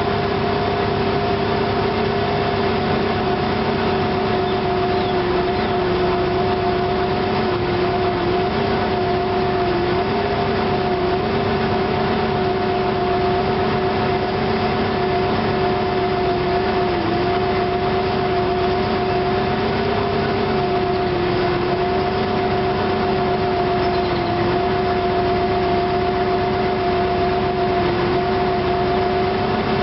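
Car engine idling roughly, a steady drone whose pitch sags briefly every few seconds as the idle stumbles.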